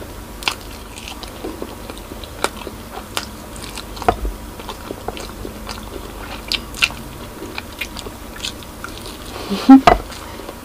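Close-up mouth sounds of eating braised pork spare ribs by hand: irregular wet clicks and smacks of biting and chewing meat off the bone. Near the end comes a short, loud vocal sound from the eater.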